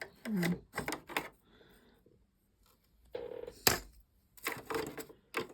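Small hand tools clicking and tapping against the metal parts of a sewing machine during cleaning. It is an irregular string of sharp clicks, with the loudest one about three and a half seconds in.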